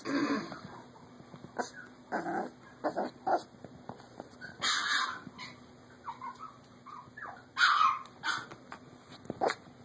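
Micro teacup poodle puppy giving short, scattered yips and barks, the loudest about five seconds in and again just before eight seconds.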